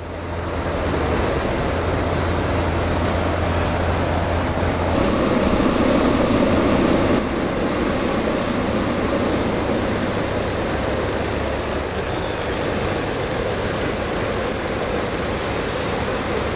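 Hot-air balloon propane burner firing: a steady, loud rushing roar with a low hum under it, its tone shifting about five and again about seven seconds in.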